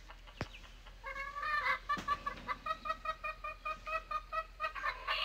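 Rooster giving a rapid run of short clucks, about five a second, then breaking into a long crow at the very end.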